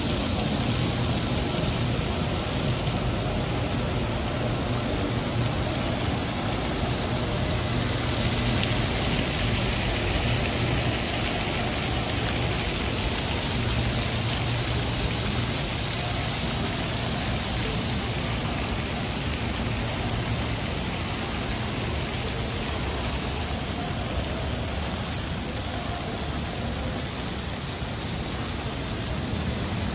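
Steady city background noise dominated by the low, even sound of road traffic, with no single distinct event.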